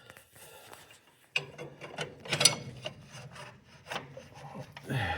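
Steel parts scraping, rubbing and knocking irregularly as a bent rod is forced through tractor clutch parts, binding as it goes; the loudest scrapes come about halfway through and near the end.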